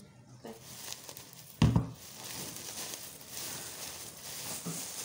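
A white sack being gathered up and folded by hand, rustling and crinkling, with one dull thump about one and a half seconds in.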